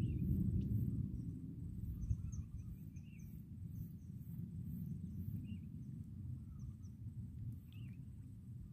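Quiet outdoor ambience: a low, uneven rumble, louder in the first second, with a few faint bird chirps scattered through it.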